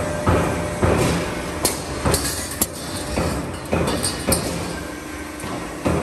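Metal ceiling carrier roll forming line running, its hole punch striking the steel strip in sharp metallic clanks about twice a second, with a pause of about a second and a half near the end.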